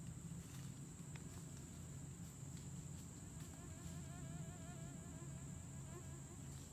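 A flying insect buzzing close by for a few seconds, its pitch wavering up and down, over a steady high-pitched whine and a few faint ticks.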